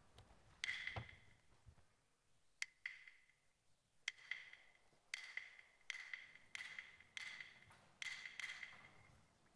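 Peking opera percussion accompaniment: about a dozen separate strokes, sharp wooden clacks mixed with light metallic strikes that ring briefly, falling into an even beat in the second half.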